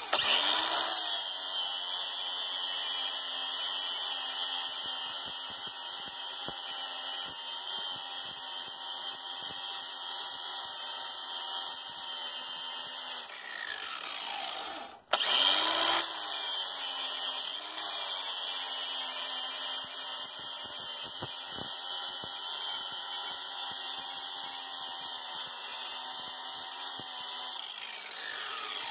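Cordless angle grinder running steadily while grinding down the end of a pipe fitting to size for a 2-inch well pipe. About halfway through it winds down, stops for a moment and spins up again, and it winds down again near the end.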